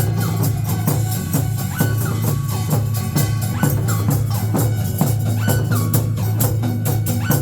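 Upbeat music with a fast, even percussion beat over a steady low bass note, with a short falling melodic figure recurring every second or two.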